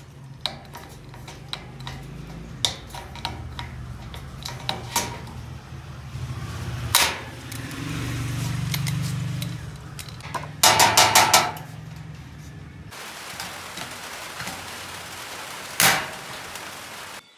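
Hand pop-rivet gun working on galvanized metal furring studs: repeated metallic clicks and clacks, a sharp snap about midway, a quick run of five loud knocks soon after, and another sharp snap near the end.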